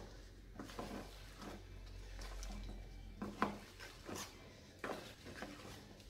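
A wooden spoon folding thick cake batter in a mixing bowl, with faint irregular scrapes and knocks against the bowl's sides and the sharpest knock about halfway through.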